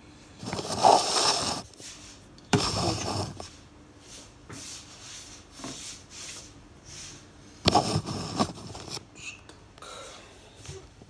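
Handling noise: hands rubbing and knocking against a smartphone and the phone doing the filming, in three loud bursts of about a second each, the second and third starting with a sharp knock.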